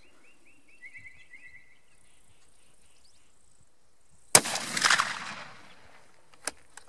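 A single shot from a 7x57 mm Mauser rifle about four seconds in, with an echo that dies away over about a second. A few short, sharp clicks follow near the end.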